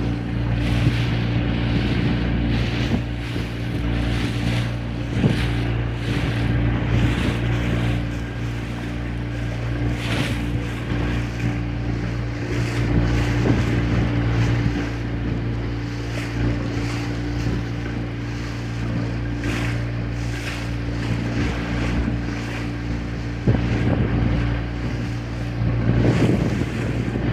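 A small boat's engine running at a steady speed under way, with wind buffeting the microphone and choppy water rushing and slapping against the hull.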